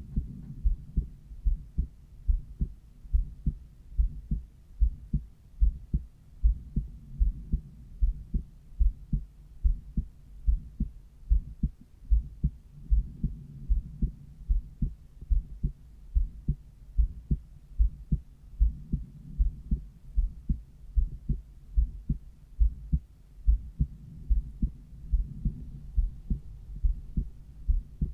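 Human heart sounds picked up by a cardiology stethoscope over the pulmonary valve: a steady, regular heartbeat.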